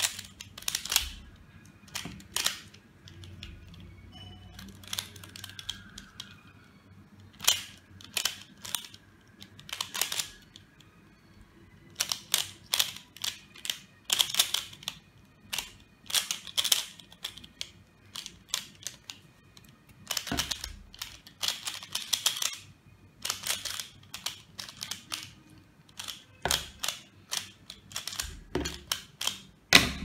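Plastic Pyraminx (pyramid puzzle) being turned quickly by hand: irregular runs of sharp clicks as its layers and tips snap round, with short pauses between runs.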